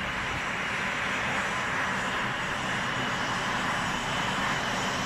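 Jet aircraft engine running steadily, an even rushing noise with a faint low hum underneath.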